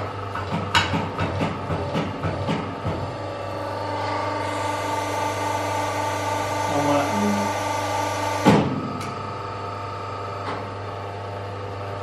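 Hydraulic crimping machine crimping the metal ring of an air spring bag: a few knocks as the part is set in the die, then from about four seconds a steady hiss and whine as the press runs, cut off by a loud clunk about eight and a half seconds in. A low steady hum from the machine runs underneath.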